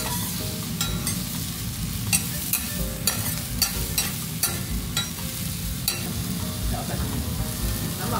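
Metal spatulas clacking and scraping on a steel teppan griddle as two okonomiyaki are flipped and pressed, over a steady sizzle of frying. The sharp clacks come irregularly, about one or two a second, and stop about six seconds in, leaving only the sizzle.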